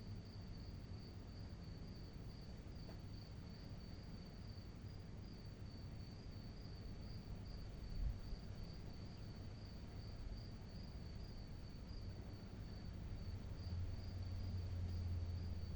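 Crickets trilling steadily in one high, finely pulsing note, over a low background rumble. There is a brief thump about halfway through, and a low hum comes in near the end.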